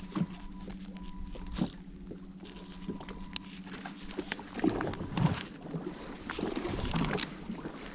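Boat motor humming steadily at low speed, with scattered knocks and rustling, and a faint high beep that comes and goes.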